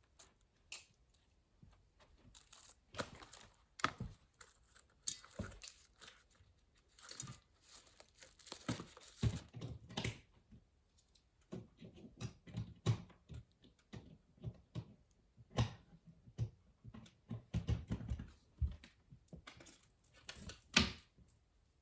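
Plastic packaging being rustled and torn by hand during unpacking, with scattered small clicks and knocks of parts being handled and set down; a sharper knock comes near the end.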